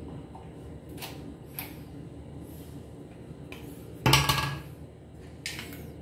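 Hard objects being picked up and handled: a few light clicks and knocks, with one louder clatter about four seconds in.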